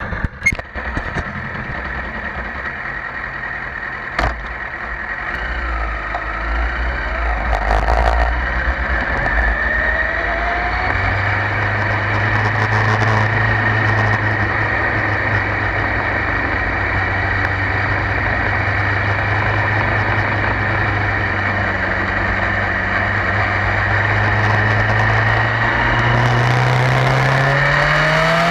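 Honda CBR1000RR SC57 inline-four engine idling steadily, after a few sharp knocks in the first seconds. The revs begin to climb near the end.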